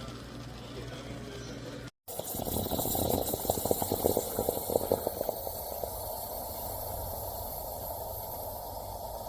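Steam espresso machine hissing and gurgling, with a run of crackling sputters about three to five seconds in that then settles into a steady hiss.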